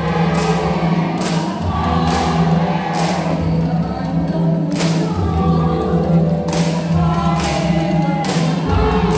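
Dance music with a choir singing over a low bass and a steady drum hit about once a second.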